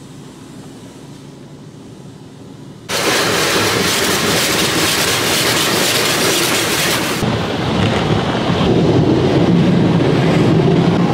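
Automatic car wash heard from inside the car: a loud hissing rush of the wash hitting the car starts suddenly about three seconds in, then about seven seconds in gives way to a duller, lower rush.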